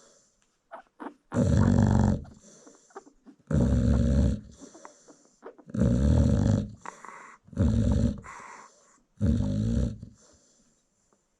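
American Bully bitch snoring in deep sleep: five loud snores, roughly one every two seconds, with fainter breathing between them.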